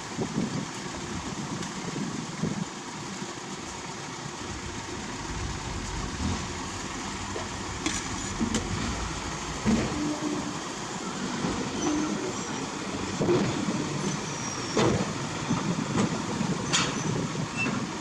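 Heavy earthmoving machinery running steadily, with several sharp knocks in the second half.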